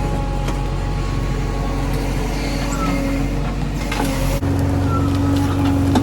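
Heavy diesel machinery engine running steadily under work, with the engine note changing abruptly about four seconds in and a few light knocks over it.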